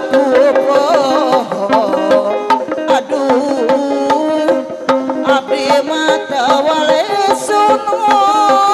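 Live Sundanese benjang procession music: quick hand-drum strokes under a wavering, ornamented melody, which settles into a long steady note near the end.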